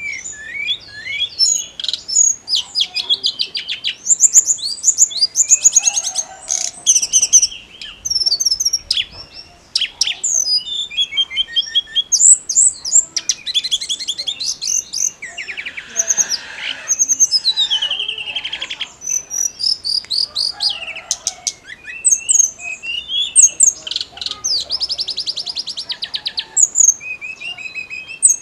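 Tledekan gunung songbird singing vigorously, in quick, varied phrases of rapid high trills and chirps separated by short pauses.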